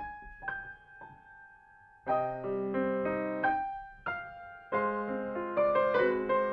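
A grand piano is played solo. A few soft held notes ring and fade for about two seconds, then full chords come back in. There is a brief thinner moment near the middle before the chords resume.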